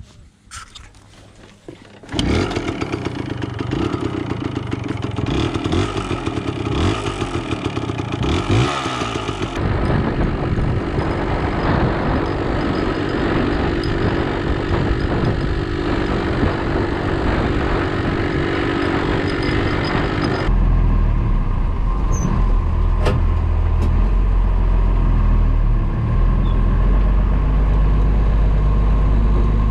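A Yamaha farm motorbike's engine starts suddenly about two seconds in and runs as the bike is ridden off along a dirt track. From about two-thirds of the way through, a tractor engine runs steadily, deep and even, heard from inside its cab.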